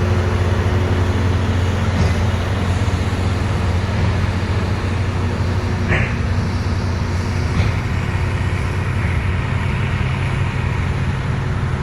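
Motor grader's diesel engine running steadily under work at a low, even pitch, with a brief high squeak about six seconds in.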